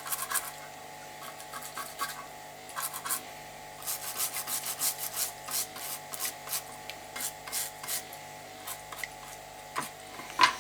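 Short, irregular rubbing strokes on a circuit board as solder flux is scrubbed off with solvent, followed by a sharp click near the end.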